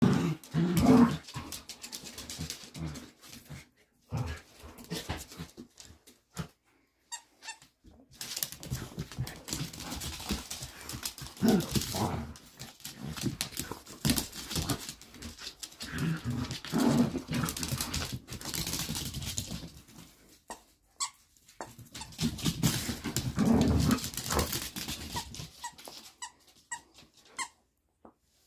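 Two dogs, a dachshund and a long-haired dog, play-wrestling on a wooden floor: irregular scuffling and low growly grumbles, with short squeaks near the end.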